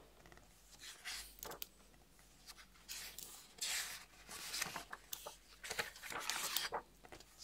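Pages of a large hardback book being flipped by hand: a run of soft, irregularly spaced paper swishes and rustles.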